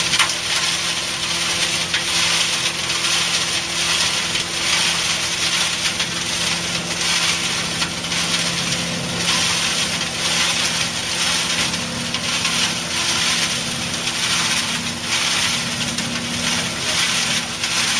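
Tractor-driven fodder blower running steadily: a dense rushing hiss of air and cut grass being blown, over the steady hum of the tractor engine driving it.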